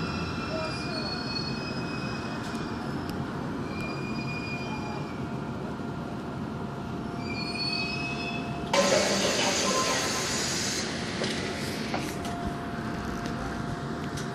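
Daegu Metro Line 2 train braking to a stop at a station platform: a steady rumble with thin, high wheel squeals that glide in pitch, then about nine seconds in a sudden loud hiss lasting about two seconds.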